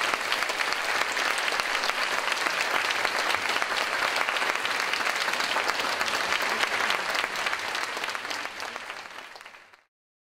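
Audience applauding: a dense, even wash of clapping that fades out near the end and stops.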